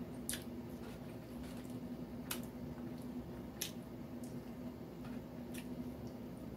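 A person chewing fried chicken, with a few sharp clicks spread through, over a steady low hum.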